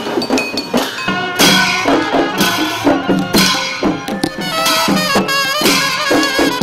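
Street brass band playing a tune: trumpets and clarinet carry the melody over a two-headed barrel drum, which strikes hard about once a second with lighter beats between.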